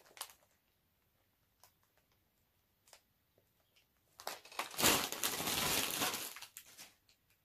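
A clear plastic zip-lock bag of wrapped sweets rustles and crinkles loudly as it is opened and rummaged through. The noise starts about four seconds in and lasts about two and a half seconds, after a few faint ticks.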